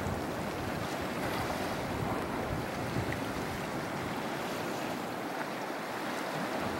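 Small waves washing against the boulders of a rock breakwater, with wind buffeting the microphone: a steady wash of noise.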